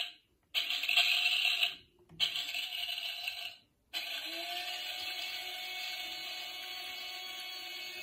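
Toy coffee machine: three loud bursts of a high-pitched sound, cut off by short silent gaps. About four seconds in, its small water pump starts with a slight rise in pitch and runs with a steady hum, ready to dispense into the cup.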